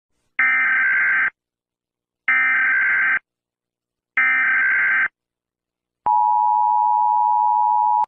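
Emergency alert alarm tones: three electronic beeps, each just under a second long and about two seconds apart, then a lower steady tone from about six seconds in.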